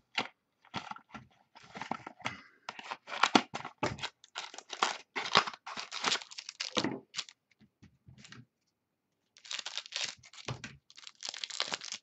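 Wrapper of a pack of football trading cards being torn open and crinkled by hand, in irregular bursts of rustling and crackling with a short pause past the middle.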